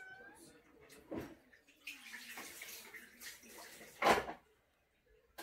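Kitchen sink tap running while dishes are rinsed, with a knock about a second in and a louder clunk near the end.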